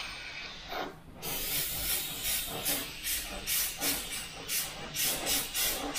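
Mr Hobby gravity-feed airbrush hissing as it sprays white paint past a hand-held shield. The spray stops briefly about a second in, then comes in quick short pulses, about three or four a second, as the trigger is worked.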